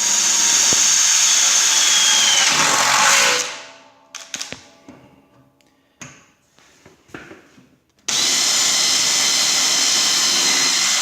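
Porter Cable 20-volt cordless drill running steadily as it bores holes in the end of a snow blade. It spins down about three seconds in, a few light knocks follow, and it starts up again suddenly about eight seconds in.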